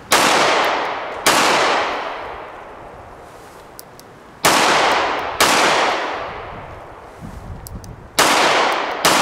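Kimber K6s snub-nose .357 revolver firing .38 Special reloads: six shots in three quick pairs, the two shots of each pair about a second apart and a few seconds between pairs. Each shot trails off in a long echo.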